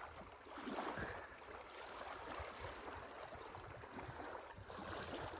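Faint, steady shoreline ambience: the rush of Lake Superior waves with wind buffeting the microphone.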